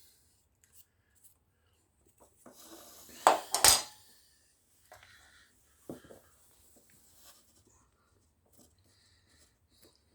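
Handling clatter as tools and cut beading are moved and set down: a short rustle, then two sharp knocks close together about three and a half seconds in, and a lighter knock near six seconds.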